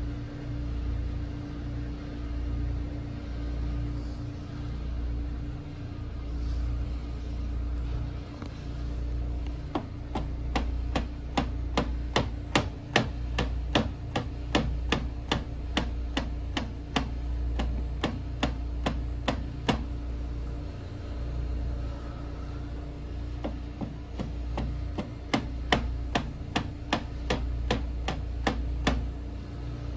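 Rapid, sharp knocks of a foot's instep striking a hard post over and over in haisoku geri conditioning, about three a second, in a run of some ten seconds and a second shorter run near the end. A steady low hum runs underneath.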